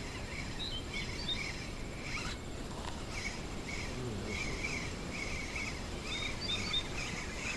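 Outdoor ambience of small birds chirping on and off, with short high notes around the beginning and again near the end, over a steady low rumble.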